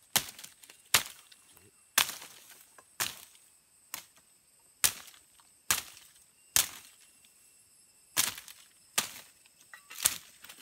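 Machete-type bush knife chopping through woody stems and undergrowth: a sharp chop about once a second, with a few quicker double strikes near the end.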